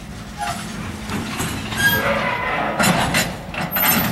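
Norfolk Southern caboose and freight car rolling slowly on the track: irregular metallic clanks and knocks from the wheels and couplers, loudest about two seconds in and again near the end, with a few short squeaks over a low rumble.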